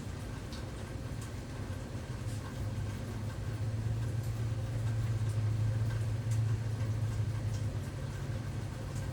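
A steady low hum that swells for a few seconds in the middle, with faint scattered ticks over it.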